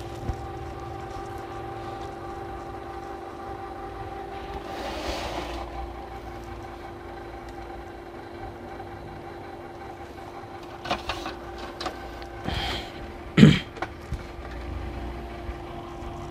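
Canon G1020 inkjet printer running a nozzle check print: a steady motor whir with mechanism clicks, and a short, loud knock about thirteen seconds in.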